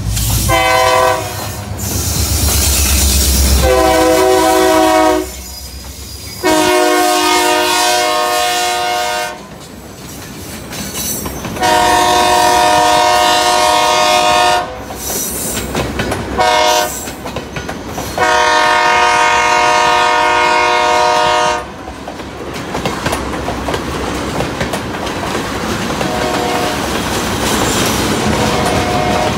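Diesel freight locomotive's air horn sounding a series of blasts as it passes: several long blasts, a short one, then a final long blast, in the grade-crossing pattern. The engine's deep rumble fades over the first few seconds. After the horn stops, about two-thirds of the way in, flatcars loaded with welded rail roll by with steady wheel-on-rail noise.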